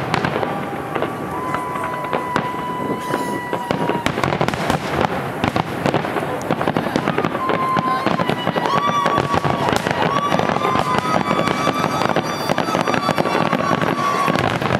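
Aerial fireworks display: a dense, continuous crackling and popping of bursting shells. Long, steady high whistles sound over it from about a second in to four seconds, and again from about seven to thirteen seconds.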